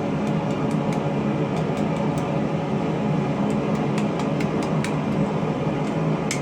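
Steady roar of a running forge, with faint scattered clicks over it.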